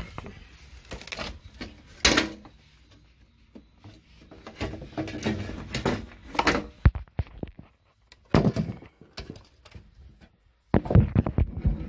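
Handling noise: irregular knocks, clunks and scrapes of a lithium battery module and its wiring being picked up and moved about. The sharpest knock comes about seven seconds in, and a busy patch of clatter starts near the end.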